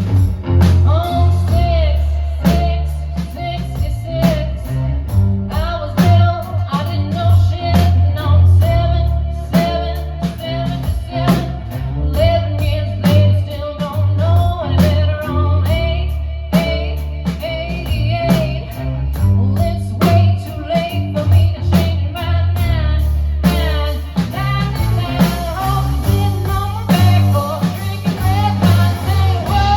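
A blues-rock band playing: guitar over drums and a heavy, pulsing low end, with a bending melodic line.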